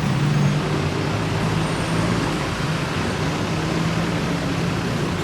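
Road traffic noise, with a vehicle engine running at a steady hum.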